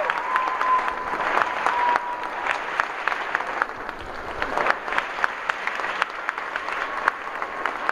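Theatre audience applauding in a standing ovation, a dense wash of clapping with many sharp single claps close by. A long high whistle rises above it in the first two seconds and again near the end.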